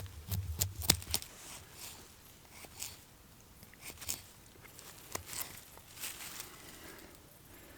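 Knife cutting a carrot on a chopping board: a scatter of irregular sharp taps, closest together in the first second.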